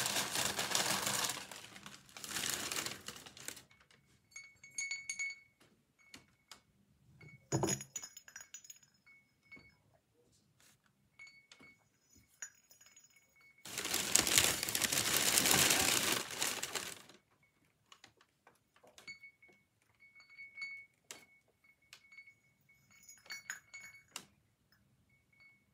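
Wrapping paper rustling and crumpling loudly twice, at the start and again about halfway through, with small painted ceramic bells clinking and giving short faint rings in between, and one knock about eight seconds in.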